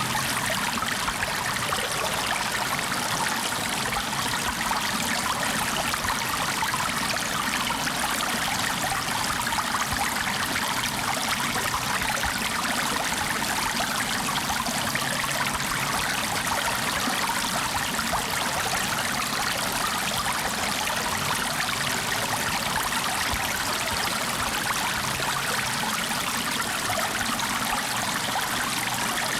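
Flowing water in a steady, unbroken rush with no pauses or changes.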